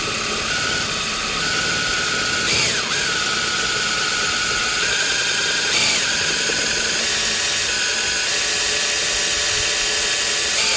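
Cordless drill running steadily as a 1/4-inch bit drills out a steel Phillips-head rotor retaining screw, with a steady motor whine. The pitch briefly sweeps up twice, about two and a half seconds in and again about six seconds in.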